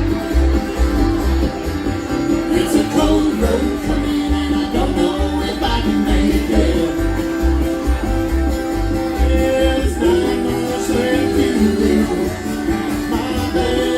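Bluegrass-style string band music: plucked acoustic guitar and other strings over a steady, pulsing low beat.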